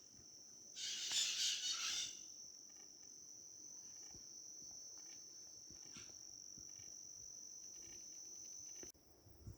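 Insects trilling steadily at one high pitch, the trill cutting off abruptly near the end. About a second in, a brief rapid twitter of bird song, the loudest sound, lasting about a second, with a few faint chirps later.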